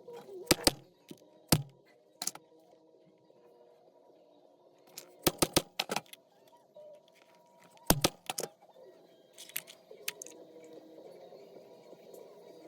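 Sharp knocks and clicks from leather punching, as a hole and slots are punched through veg-tan leather for a rivet and strap. They come singly and in quick runs of two to four.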